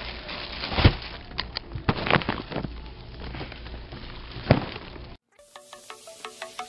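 Rustling and a few sharp thumps from plastic-wrapped toilet paper packs being moved and stacked close to the camera. About five seconds in the sound cuts off and gives way to background music with light, chime-like plucked notes.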